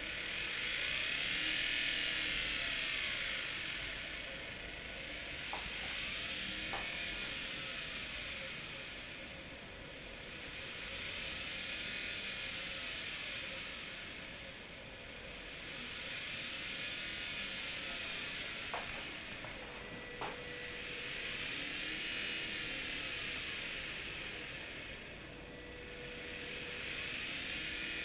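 Washing-machine commutator motor running with a hissing whine, its speed rising and falling in a slow cycle about every five seconds, so the sound swells and fades six times. A few faint clicks near the middle.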